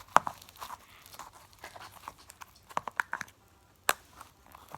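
Hands squishing and pulling apart sticky foam slime: irregular small clicks, crackles and sticky pops, with a sharper snap just after the start and another near the end.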